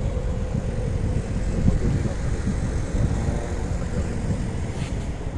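Steady low rumble of city-centre traffic noise.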